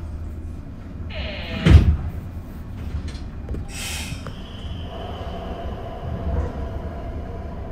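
Doors of a 103-series electric train sliding shut at a station stop: a loud falling sweep about two seconds in, then a short hiss, over a steady low rumble from the standing train. A faint steady tone comes in after about five seconds.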